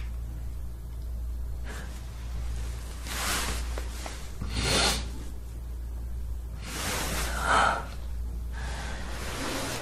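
A woman crying without words, her sobbing breaths coming out noisily, with three louder ones about two seconds apart, over a steady low hum.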